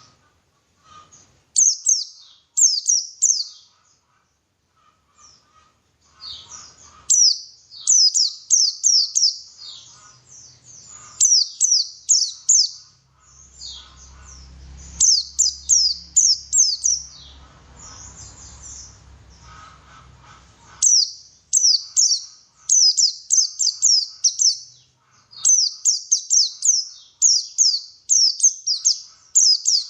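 White-eye (pleci) singing in quick bursts of high, rapid down-slurred notes, phrase after phrase with short pauses between. A faint low rumble sits under the song for several seconds in the middle.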